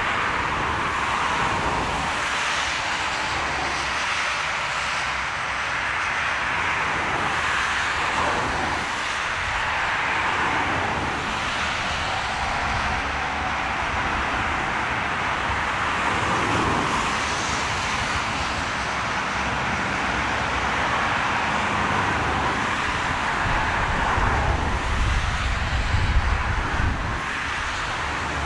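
Airbus A380 on final approach, its four jet engines giving a steady roar as it comes toward the listener. Gusts of storm wind rumble on the microphone, heaviest near the end.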